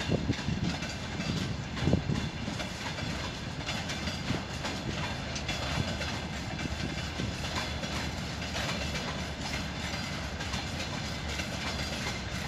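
Freight train of open wagons behind a VL80K electric locomotive rolling past: a steady rumble of steel wheels on rails with a clickety-clack of wheels over rail joints. Louder at the start, with a heavy knock about two seconds in.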